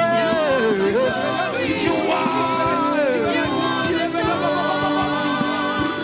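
Gospel worship singing: voices singing a slow melody over steady held accompaniment chords.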